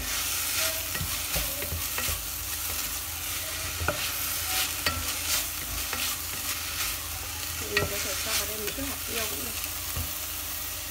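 Beef and green beans sizzling in a hot stainless steel pot while a wooden spatula stirs them, with irregular scrapes and knocks of the spatula against the pot.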